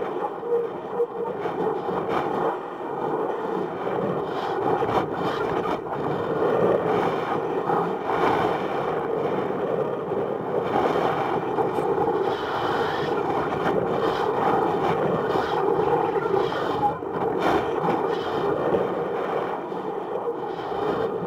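Steady rushing noise with irregular scrapes and clicks, from air moving past a balloon-borne camera payload and the payload housing rubbing and knocking as it swings.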